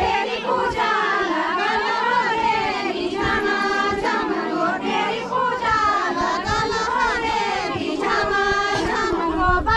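A group of women singing together in chorus, several voices overlapping slightly out of step, as the song for a linked circle dance.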